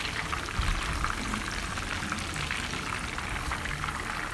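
Masala-coated chicken leg pieces frying in hot coconut oil in a pan: a steady sizzle full of fine crackles.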